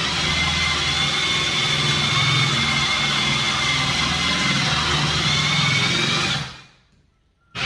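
Power drill spinning a Bosch 7-in-1 hole saw as it cuts, a steady motor noise with a high whine that stops about six and a half seconds in. A brief sharp sound comes right at the end.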